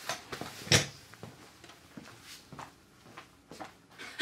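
Scattered soft knocks, taps and rustles of a person getting up from a padded salon chair and moving away, the sharpest knock just under a second in.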